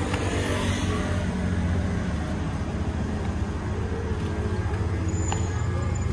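2007 Suzuki GSR600's inline-four engine idling steadily through its stock exhaust.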